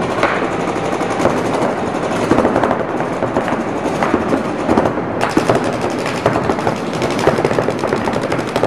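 Paintball markers firing rapid, overlapping streams of shots. About five seconds in the firing becomes denser and more even in rhythm.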